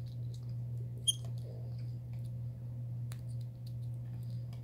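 A capuchin monkey gnawing and handling a small lid: faint scattered clicks and ticks over a steady low hum, with one brief sharp high squeak about a second in.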